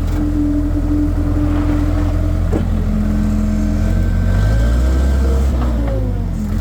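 Skid steer engine running hard, heard from the machine, its note shifting as it works; past the middle it turns deeper and heavier for a couple of seconds, with its pitch bending up and back down, then settles. A short click about two and a half seconds in.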